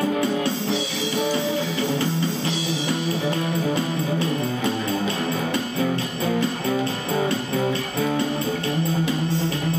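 Guitar music: an acoustic guitar played through an overdrive pedal into a small ten-watt amp, picking a melody of plucked notes over a repeated low note.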